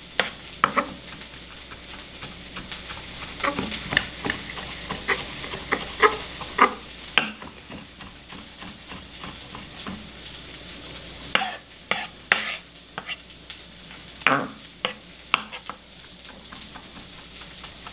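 Chef's knife rock-chopping garlic on a wooden cutting board: irregular clusters of sharp knocks as the blade hits the board. A steady, faint frying sizzle from the pan of caramelizing onions runs underneath.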